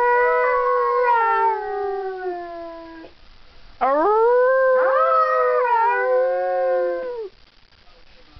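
Siberian husky howling: a long howl sliding down in pitch ends about three seconds in, then after a short pause a second howl rises quickly, holds, and falls away before stopping near the end.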